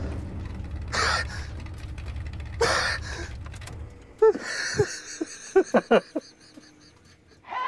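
A man gasping sharply for breath twice, then breaking into a string of short, choked sobs and whimpers. Under the gasps there is a low race-car rumble that dies away about halfway through.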